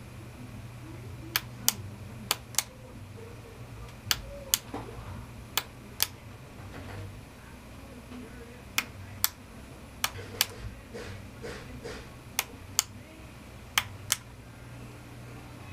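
Sharp clicks, mostly in pairs a third to half a second apart and about eight pairs in all, over a steady low hum.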